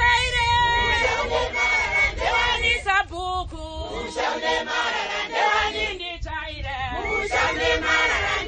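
A group of singers, mostly women, singing a song together as they dance.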